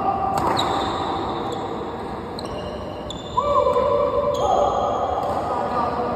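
Badminton rally in an echoing hall: rackets strike the shuttlecock about once a second, each hit a sharp crack that rings on. About halfway through, a player's voice calls out over the play.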